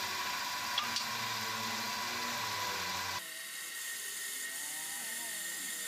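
Woodworking power tool running with a steady high whine; it cuts off abruptly about three seconds in, leaving a quieter steady hum.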